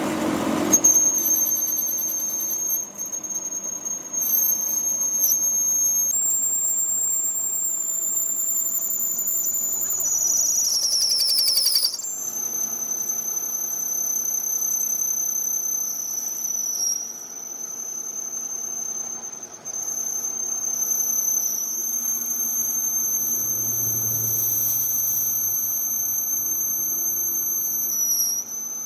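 Steady high-pitched whine of a machine tool running, with a fainter tone an octave above it. The pitch steps up about six seconds in, slides down a little before twelve seconds, then settles and holds.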